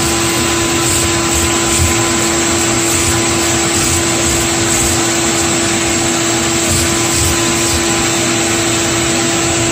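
Vacuum cleaner running steadily through its hose, a constant rushing noise with a steady hum and a high whine, its nozzle held to a cat's fur.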